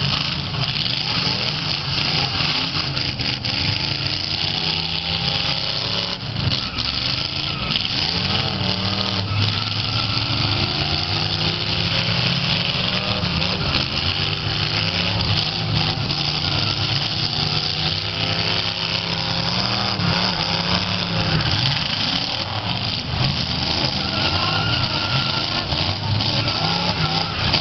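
Several V8 demolition-derby cars running hard together, their engines revving up and down, with a few faint knocks from the cars pushing and hitting each other.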